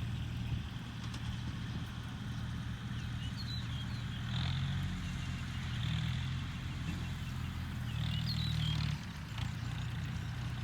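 An engine running steadily. It grows louder and higher for several seconds from about four seconds in, then drops back near the end. A few faint high chirps sound over it.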